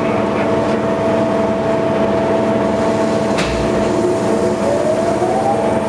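Blanchard 20D rotary surface grinder running with its magnetic chuck table turning: a steady machine hum with a steady whine. There is a single sharp click a little past three seconds, and a tone rising in pitch near the end.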